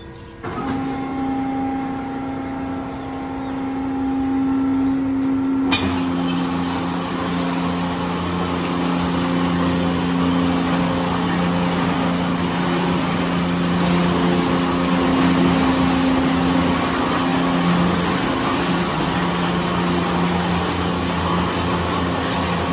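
Autec 260 in-bay automatic car wash running its cycle: a machine hum comes on about half a second in, then at about six seconds the water spray and spinning cloth side brushes start, a loud steady rushing with a low hum underneath.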